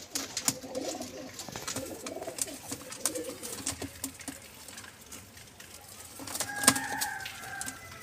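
Teddy pigeons cooing in low, rolling coos over the first few seconds, with scattered light clicks and taps. About six and a half seconds in comes a sharp click and a brief higher-pitched tone that lasts about a second.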